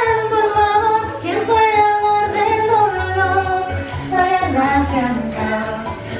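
Music: a woman singing long, gliding notes over a backing track with a deep bass beat.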